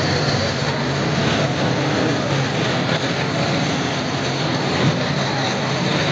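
Steady din of a large outdoor crowd, an even wash of many voices and noise with no single sound standing out.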